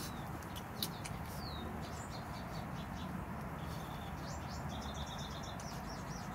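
Small birds chirping in short high notes, including a falling note and later a quick run of repeated notes, over a steady background hiss, with a few faint clicks.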